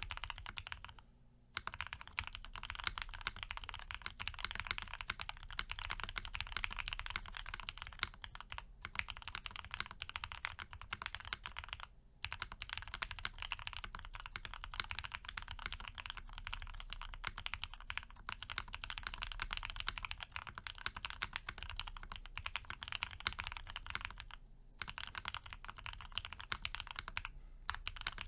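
Fast, continuous typing on a Piggy 60 custom mechanical keyboard with lubed and filmed Gateron FC switches on a polycarbonate plate, with CRP APL keycaps. The keystrokes run as a dense stream of clicks with brief pauses three times.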